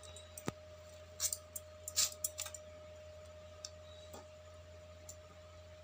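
Knife cutting and paring raw green mangoes: scattered light clicks and scrapes of the blade, bunched in the first half, over a steady faint hum.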